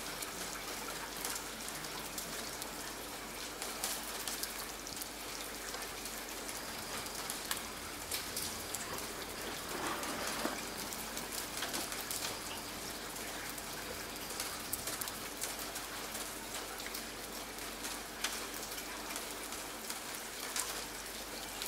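Steady light rain falling, with individual drops striking close by now and then.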